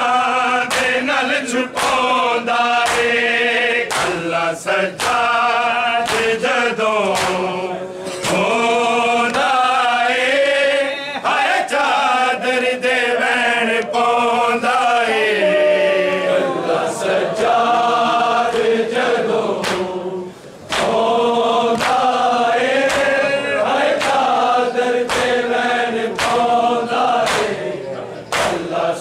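A group of men chanting an Urdu/Punjabi noha (Shia lament) in unison. It is kept in time by a steady beat of sharp slaps from mourners striking their chests in matam.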